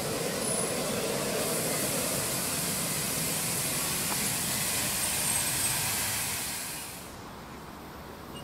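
Miniature live-steam locomotive letting off steam: a loud, steady hiss starts about a second in and cuts off sharply near the end.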